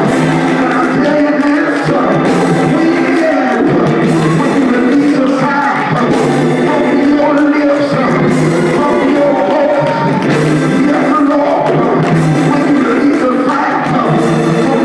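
Loud live church music with singing over sustained instrumental chords.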